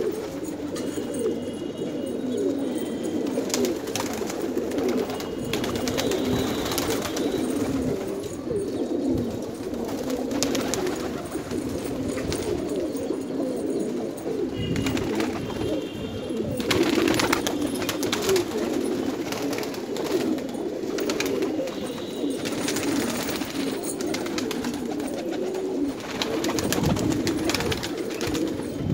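A flock of domestic pigeons cooing, many low coos overlapping into a continuous chorus.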